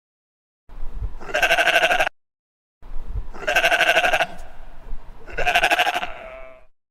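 Sheep bleating three times, each a wavering call about a second long.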